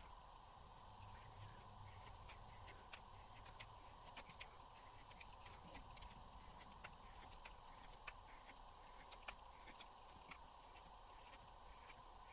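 Faint, irregular taps and scratches of a paint pen tip on paper, over quiet room tone.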